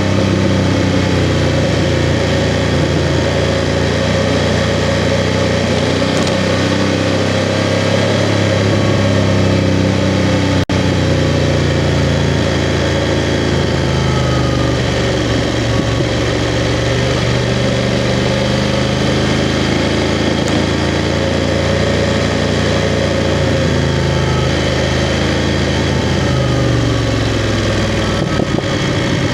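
BMW F 750 GS motorcycle's 853 cc parallel-twin engine running under way, its pitch rising and falling gently with the throttle.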